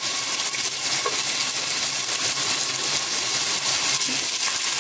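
Crushed ginger sizzling steadily in hot coconut oil in a pot.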